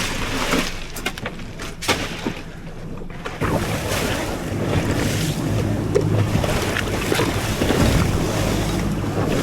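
Several sharp knocks over wind and water for the first few seconds. About three seconds in, a boat's outboard engines take over as a steady drone under wind on the microphone and water rushing past the hull, the sound of the boat running on open ocean.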